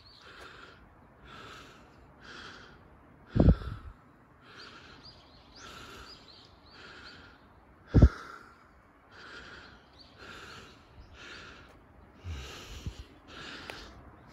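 A person breathing hard and rhythmically close to the microphone, about one breath a second, as from the effort of walking up a steep slope. A few short low thumps come through, the loudest sounds, about a third of the way in, just past halfway and near the end.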